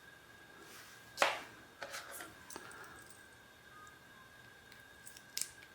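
Light handling of a fitness tracker and its watch band as the band is swapped: small clicks and taps, with one short scrape about a second in. A faint steady high tone runs underneath.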